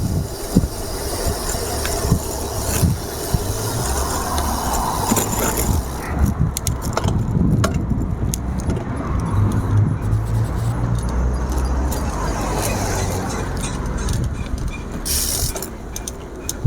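Road traffic noise from passing cars, heard from a bicycle riding on a busy road, with a continuous low rumble and scattered small clicks and rattles.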